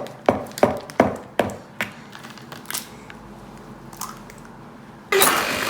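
Egg tapped against the rim of a mixing bowl to crack it: a quick run of about six sharp knocks, then quiet. Near the end a much louder, steady noise starts abruptly.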